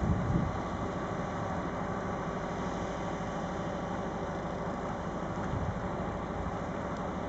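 An engine idling steadily with an even low throb. There is a brief low thump at the very start.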